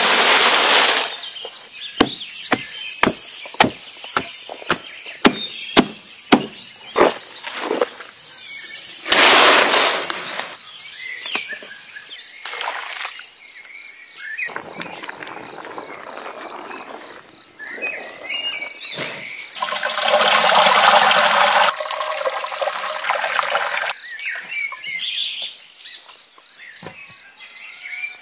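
Green leaves poured in a rush from a woven bamboo basket, followed by a run of sharp knocks and clicks and a second rush. Later a pot of leaves boils and bubbles, with a louder rushing noise about two-thirds through. A thin steady high-pitched tone sits behind from the middle on.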